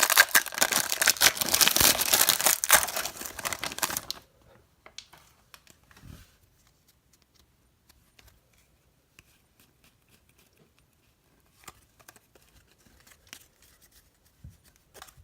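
A 2017 Panini Contenders Draft Picks baseball card pack's wrapper being torn open and crinkled, loudly, for about four seconds. Then it goes quiet, with scattered faint ticks from the cards being handled.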